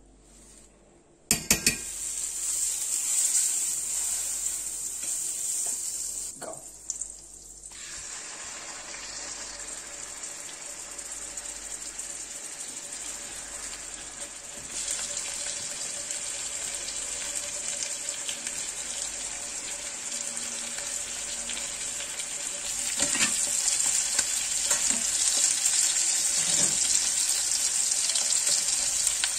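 Butter sizzling in a hot cast-iron skillet, starting with a sharp clack about a second in. About halfway through, a thick wagyu steak goes into the butter and the frying grows louder, with a few knocks of tongs and spoon against the pan near the end.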